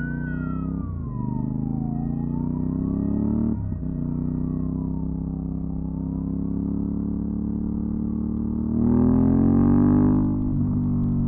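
Aprilia Dorsoduro 750's V-twin engine running through a LeoVince SBK exhaust, with two brief breaks in the engine sound early on, the first about a second in. Near the end it gets louder as the revs climb, then eases off. In the first half a siren wails up and down and fades away.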